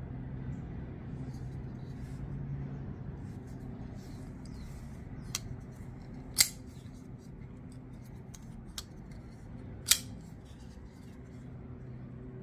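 Kizer Doberman folding knife being opened and closed by hand, its blade snapping into place: four sharp metallic clicks, the two loudest about six and ten seconds in, with faint handling ticks between, over a low steady hum.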